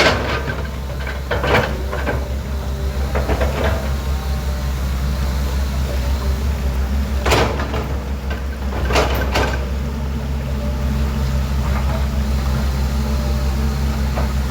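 Excavator's diesel engine running steadily, with a series of sharp metallic clanks and scrapes, the loudest about seven and nine seconds in.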